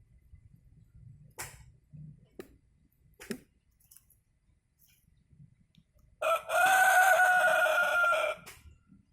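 Rooster crowing: one long crow of about two seconds in the second half, after a few faint taps.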